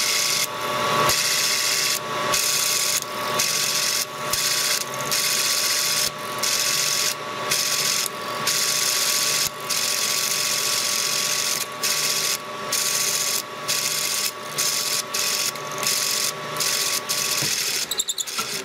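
Metal lathe spinning a pair of 3D-printed plastic bevel gears at about 800 RPM: a steady mechanical whirring with a thin high whine, its loudness dipping briefly every second or so. Near the end the whine cuts off and the gears rattle briefly as the run winds down.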